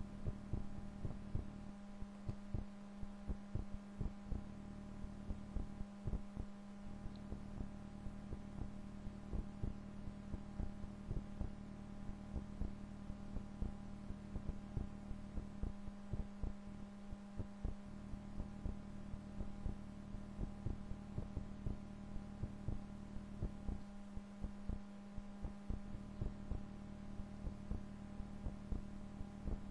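Low, steady background hum with short soft thumps recurring irregularly, roughly twice a second.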